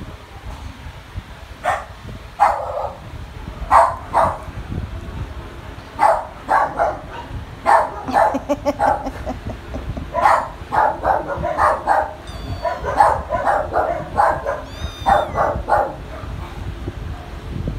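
A dog barking repeatedly: short barks, often in quick runs, starting about two seconds in.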